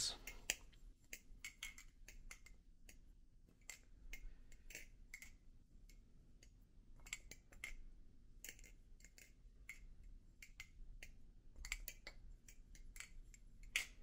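Hazetac Jigsaw balisong being flipped: faint, irregular clicks of its aluminium handles knocking against the blade's tang pins as it swings open and shut.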